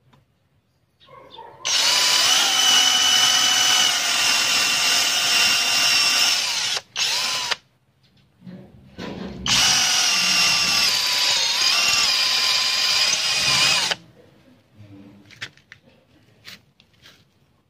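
Nanwei brushless cordless drill boring into a stone slab: the motor whines steadily for about five seconds, gives a short burst, then runs again for about four and a half seconds before stopping.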